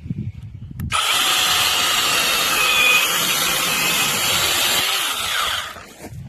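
Battery-powered brushless mini chainsaw switched on about a second in and running at full speed for several seconds, then winding down with a falling whine near the end.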